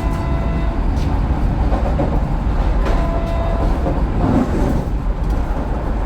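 Cabin noise of the Vande Bharat Express electric train set running: a steady low rumble with a few sharp clicks and knocks.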